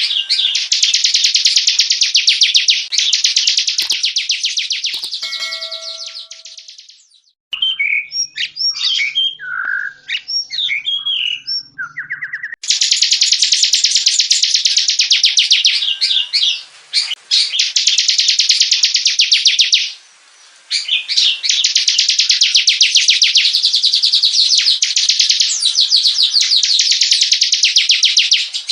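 Bar-winged prinia (ciblek) singing long, very fast ticking trills. A few seconds in, the trill fades and gives way to a stretch of separate, varied chirps. The trills then resume, with a short break near the end.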